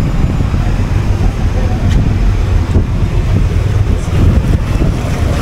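Steady low rumble aboard a moving cruise boat under way: the boat's engine drone mixed with wind buffeting the microphone.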